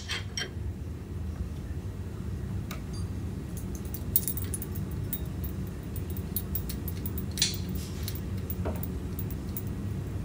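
Light metallic clinks and jingles of hand tools, a pipe wrench and locking pliers, being fitted onto a steel drive shaft clamped in a bench vise, over a steady low shop hum.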